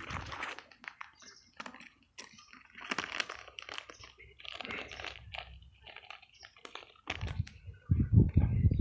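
Close-up mouth sounds of someone chewing an ice-cream bar with a popping-sugar coating: irregular crunching and crackling clicks throughout. Heavier low thumps and rumble come in near the end.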